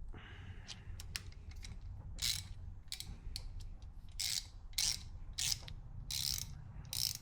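Hand ratchet from a Tekton quick-release ratchet set being swung back and forth, its pawl clicking in a run of short ratcheting bursts, about every half second to second.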